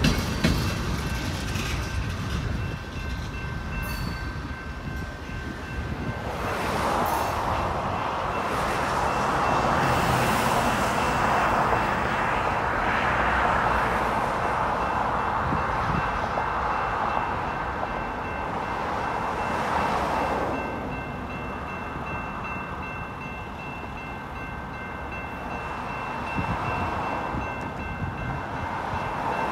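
Railroad crossing warning signal ringing steadily while the gates stay down with no train at the crossing, a sign of the crossing malfunctioning. A broad rushing noise swells about six seconds in and dies away around twenty seconds.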